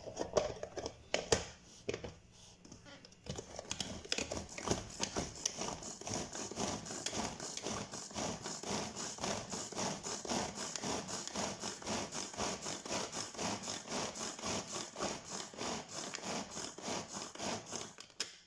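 Hand-pulled mini food chopper in use: its pull cord is yanked over and over, giving a fast, even run of ratcheting, whirring strokes as the blades chop chilies and shallots. It starts after a few clicks as the lid is fitted and stops near the end.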